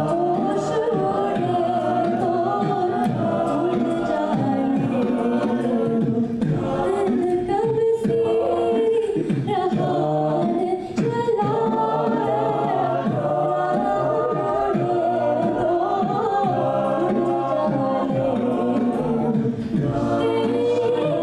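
Collegiate South Asian fusion a cappella group singing in layered vocal harmony, with a low sung bass line beneath the melody.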